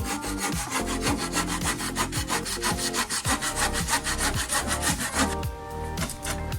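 Saw cutting through a wooden frame timber in quick, even strokes, easing off near the end.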